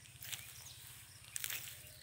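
Footsteps crunching on dry straw mulch and tilled soil, two steps about a second apart, over a low steady hum.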